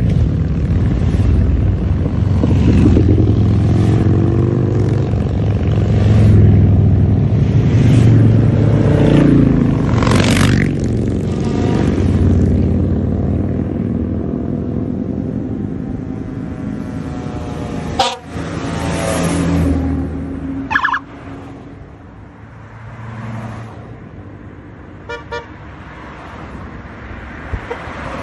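A procession of motorcycles riding past, their engines' low rumble loud for the first half and then fading away. Several short horn toots sound later on.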